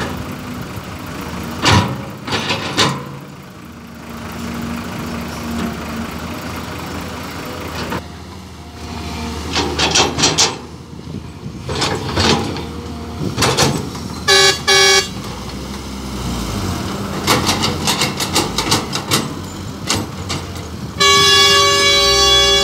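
A CAT hydraulic excavator's diesel engine working as it digs and dumps soil into a dump truck, with repeated clanks and thuds from the bucket and falling dirt. About two-thirds of the way through, a horn toots a few short times, and near the end music with held notes comes in.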